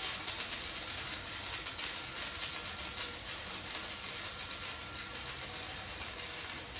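Welding arc from a small Chicago Electric welder laying a steady bead on thin square steel tubing, a continuous crackling hiss.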